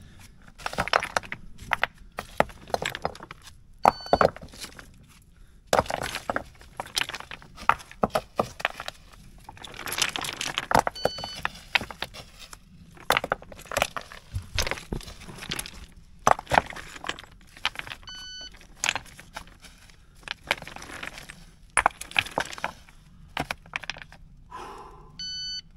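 Loose stones clattering and clinking against each other as they are picked out of a rubble pile by hand and tossed aside, in quick irregular clatters. A short electronic beep sounds about every seven seconds.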